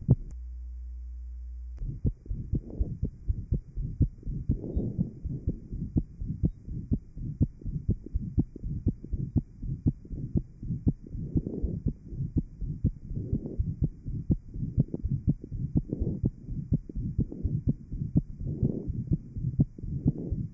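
Heart sounds picked up by a chest microphone over the aortic area of a patient with a ventricular septal defect, after surgical plication of the pulmonary artery: a steady run of sharp heartbeats with a murmur filling the gaps between them. For about the first two seconds there is only a steady low hum before the beats come in.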